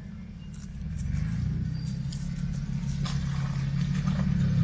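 Four-wheel-drive vehicle's engine running under load as it crawls up a rough off-road climb, a low steady hum that grows louder from about a second in.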